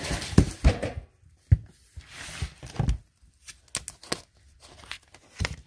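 A vinyl coin-collection binder and its plastic-sleeved pages being handled, flipped over and opened: a string of sharp clicks and knocks, with plastic rustling between them.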